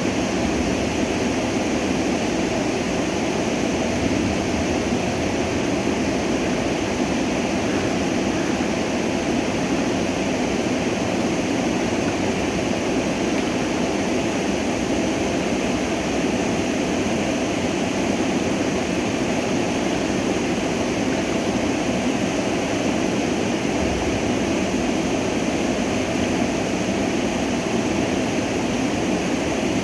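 Stream water flowing and rushing steadily, an even, unbroken hiss.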